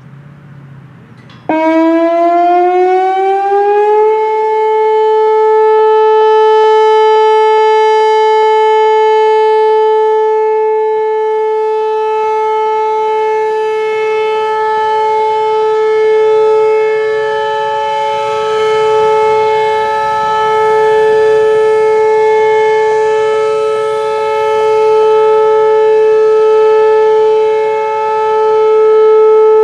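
Whelen Vortex R4 electronic outdoor warning siren sounding its Alert signal: it starts abruptly about a second and a half in, climbs in pitch for a couple of seconds, then holds one loud steady tone that swells and fades gently as the rotating speaker head turns.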